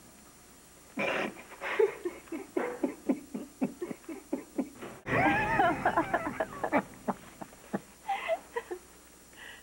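People laughing in quick, breathy bursts, the laughter getting louder and more voiced about halfway through and then dying down to a few last chuckles.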